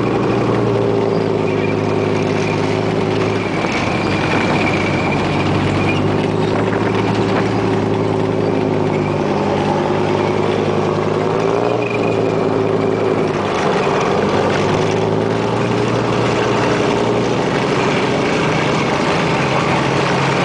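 BVP M80A infantry fighting vehicle's FAMOS 10-cylinder diesel engine running steadily, heard from on top of the hull as the vehicle moves; the engine note dips briefly about halfway through.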